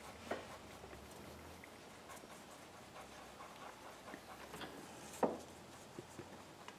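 Faint, irregular small taps and clicks from handling work on a bench while two-part epoxy is mixed with a toothpick. The loudest is a single sharp tap about five seconds in.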